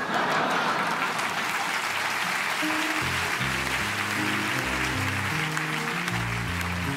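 Audience applauding, with a dense even clatter of clapping. About three seconds in, instrumental music with a low line of short notes comes in beneath the applause.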